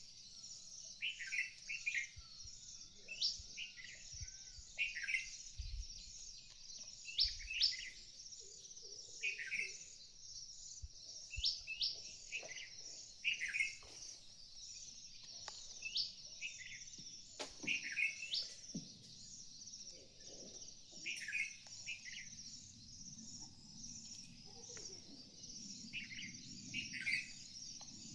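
Birds calling: short chirping phrases with sharp rising notes, repeated every one to two seconds over a steady, high-pitched background chatter.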